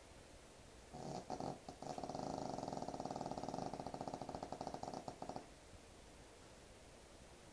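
A sleeping pet snoring: one long snore with a fast flutter, starting about a second in and lasting about four seconds.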